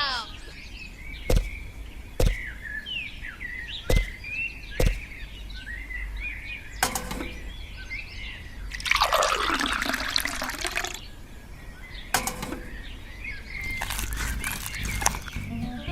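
Small birds chirping, with a handful of sharp clicks or knocks and a noisy two-second rush about nine seconds in that sounds like something liquid pouring or splashing.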